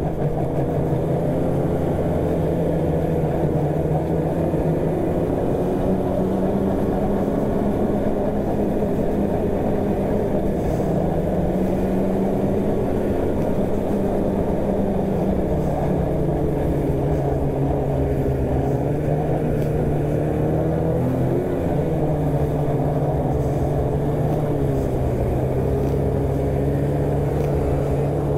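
Snowmobile engine running steadily at cruising speed while being ridden. Its pitch eases up and down a little and drops slightly about halfway through.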